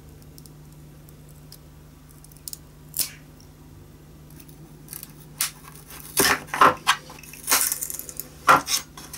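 Old broken wooden bottom block of a violin being pried apart and pulled off with a blunt table knife: wood cracking, clicking and knocking. A few light clicks come first, then a run of sharper cracks and knocks in the second half.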